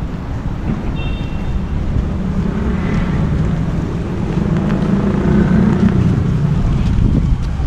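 A motor vehicle passing close by on the street, its low engine and tyre rumble building over several seconds and then easing, with wind on the microphone.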